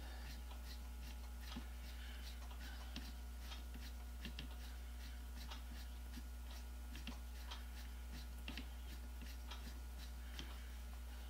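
Hand screwdriver driving a long screw into a power drill's housing: faint, irregular small ticks and scrapes, a few a second, as the screw is turned and the grip shifts. A steady low hum runs underneath.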